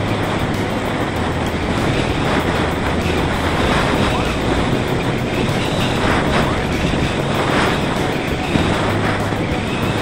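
Steady rush of airflow buffeting the microphone of a camera riding on a gliding Parrot Disco fixed-wing drone, its motor switched off.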